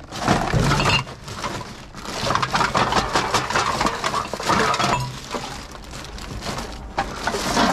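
Empty drink containers, cans and glass bottles, clinking and clattering against one another as they are rummaged through and handled, with many quick sharp knocks close together.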